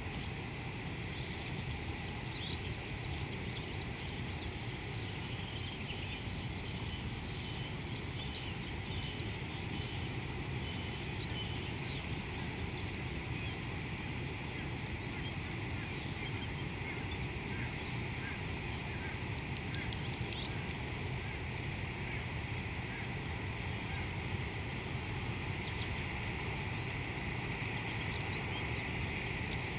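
Natural ambience: a steady high insect drone with scattered short bird calls over a low rumble of background noise.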